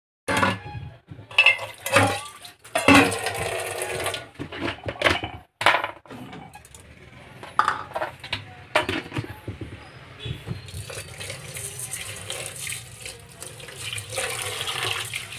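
Clanks and knocks of a metal pot being handled in a stainless steel sink, with rice scooped in. About eleven seconds in, tap water starts running steadily into the pot as the rice is rinsed by hand.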